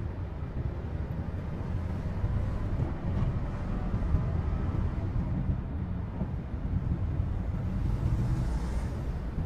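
Steady low rumble of a Toyota Hiace Premio van on the move, its engine and road noise heard from inside the cabin.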